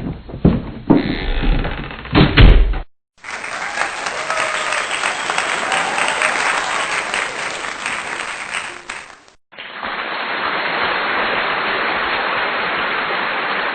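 Audience applause in two separate clips, each a few seconds of dense, steady clapping. Before them come about three seconds of loud knocks and thumps.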